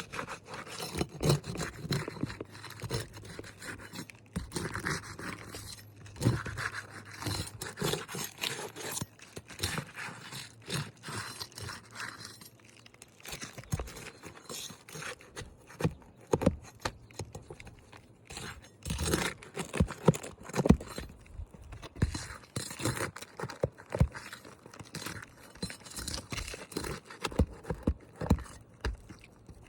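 Irregular scraping, crunching and clicking on roof shingles, as a wind-damaged shingle is worked at and moved over by hand and foot.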